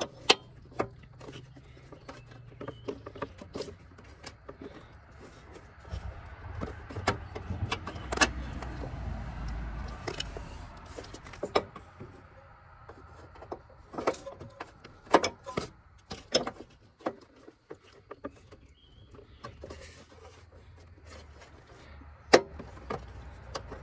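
Scattered clicks and metallic clinks as hands work an A/C line and its fitting into a car's condenser, with a low rumble for a few seconds in the middle.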